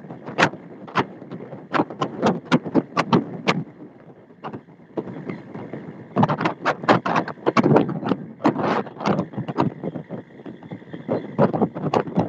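A fishing boat under way at sea: a continuous running and water noise broken by irregular sharp bursts, about two or three a second, with a quieter stretch in the middle.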